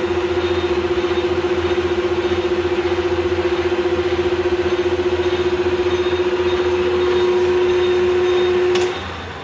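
Clausing Colchester 13-inch gearhead lathe running at 570 RPM with the power cross feed engaged: a steady gear whine over the drive's running noise. Near the end a click comes, the whine cuts off, and the machine fades as it runs down.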